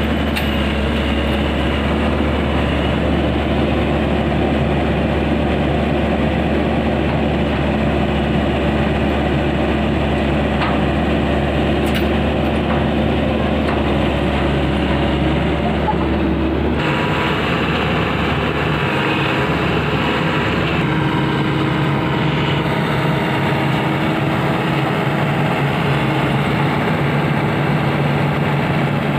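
Heavy diesel machinery engine running steadily, with a low hum; the sound changes abruptly about two-thirds of the way through.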